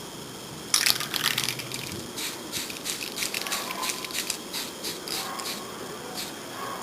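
Aerosol spray can of primer spraying in a series of short, irregular bursts, starting about a second in.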